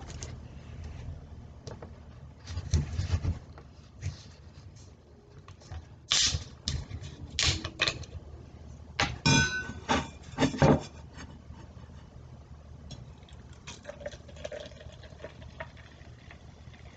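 A plastic soda bottle of Diet Mountain Dew being handled on a wooden desk, with several short rustling and clicking bursts as its cap is twisted off, the carbonation hissing out. Near the end the soda pours, fizzing quietly, into a stainless-steel tumbler.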